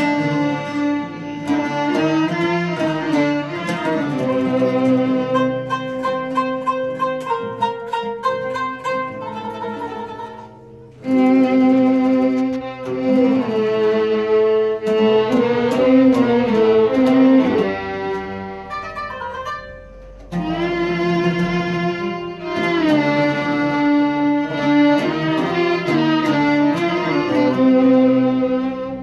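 Small Arabic ensemble of violin, two ouds and a qanun playing an instrumental melody together: the violin draws out held notes over the plucked oud and qanun. The melody breaks off briefly about 11 and 20 seconds in, then carries on.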